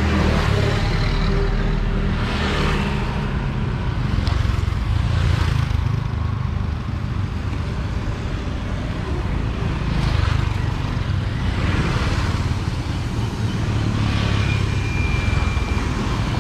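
Road traffic: a steady low engine rumble as several motorbikes pass one after another, each swelling and fading.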